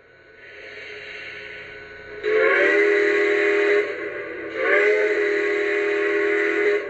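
Lionel PRR T1 model's RailSounds steam whistle, played through the locomotive's onboard speaker: a hiss of steam builds, then the whistle sounds two blasts, the second longer, each sliding up in pitch as it opens.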